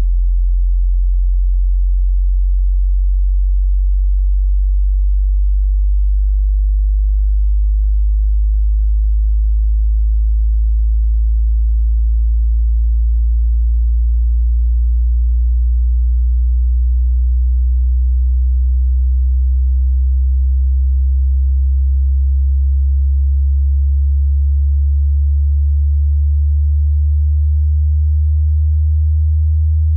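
A pure sine test tone for a hearing test, very low in pitch, held at a steady loudness and slowly rising as a frequency sweep.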